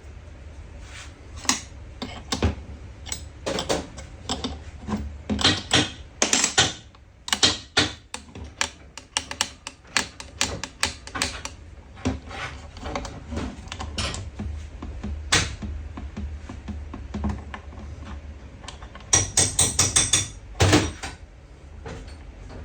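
Small metal parts and hand tools clicking and clattering irregularly on a workbench during fuel pump repair, with a quick run of sharper clinks near the end, over a steady low hum.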